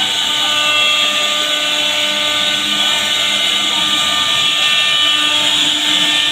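CNC router spindle running at speed with its bit cutting a groove into a wooden door panel: a steady whine over the hiss of the cut.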